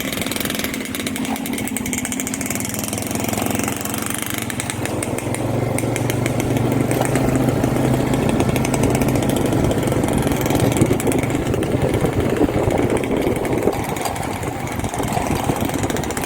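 Small motorcycle engine running steadily as it is ridden, its note getting louder for several seconds in the middle.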